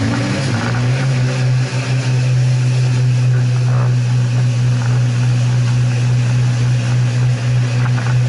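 Twin engines of a Sea Ray 240 Sport jet boat running at speed: a steady drone that rises slightly in pitch in the first second and then holds, over a constant rushing noise.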